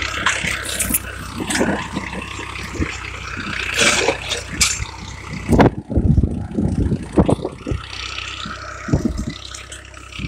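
Tractor engine running steadily under load while pulling a tine cultivator through dry, cloddy soil, with irregular scraping and knocks of clods against the tines.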